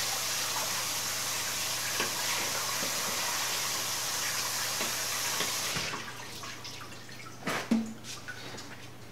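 Kitchen faucet running as a chicken of the woods mushroom is rinsed under it. The water shuts off about six seconds in, followed by a couple of knocks.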